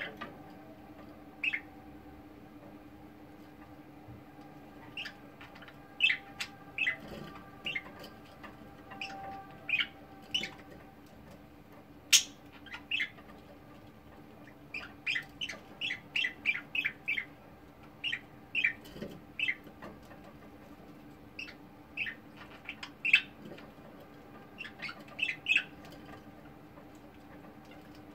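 Budgerigars chirping in short, scattered calls, with a quick run of chirps midway. A faint steady hum lies underneath, and there is one sharp click about twelve seconds in.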